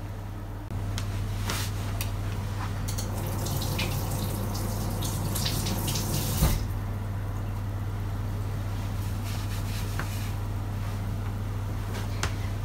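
A steady low hum, with scattered rustling and clicks over the first half and a single louder knock about six and a half seconds in.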